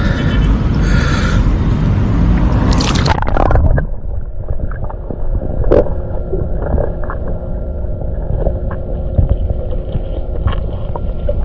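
A splash about three seconds in, then everything turns muffled: underwater gurgling and bubbling as a man drinks cola and burps under water, with scattered clicks and a short low-pitched sound about six seconds in.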